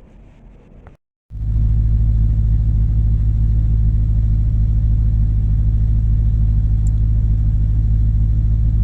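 C5 Corvette V8 idling, heard from inside the cabin with no divider between cabin and trunk: a loud, steady low rumble that starts suddenly after a brief cut about a second in.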